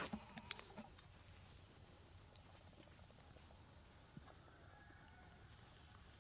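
Faint, steady high-pitched insect drone, with a few soft clicks and rustles of dry leaves in the first second.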